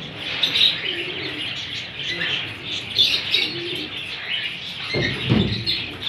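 Several caged green parakeets chirping and chattering in short, repeated calls, with a dull thump about five seconds in.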